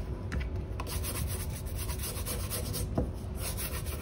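Shoe-shine brush rubbing back and forth over a leather shoe and its sole edge in quick strokes, with one light knock about three seconds in.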